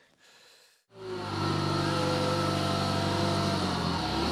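1957 Cincinnati No. 5 milling machine starting about a second in, then running at a steady pitch as a hum of several steady tones. Its lower tones shift near the end.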